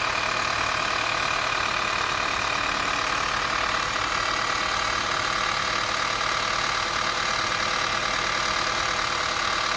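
Subaru Outback's CB18 1.8-litre turbocharged flat-four running steadily, with a steady high-pitched whine over fast ticking: the abnormal engine noise the owner is recording.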